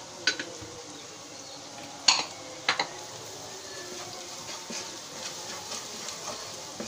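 Wooden spoon stirring and scraping a spice paste frying in oil in a pan, the oil sizzling steadily: the masala being fried down after red chilli powder has gone in. A few sharp knocks of the spoon against the pan, the loudest about two seconds in.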